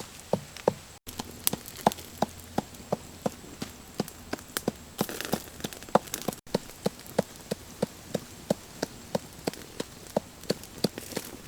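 A steady series of sharp knocks, about three a second, over a faint hiss.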